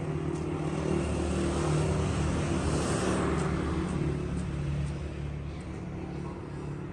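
Motor vehicle engine running with a steady low hum, and a rushing noise that swells up about two to three seconds in and then fades, like a vehicle passing by.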